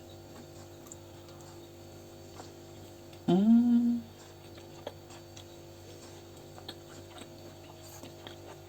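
A woman's short, rising 'mmm' of approval while tasting and chewing food, lasting under a second. Under it runs a faint steady electrical hum, with a few faint clicks of cutlery.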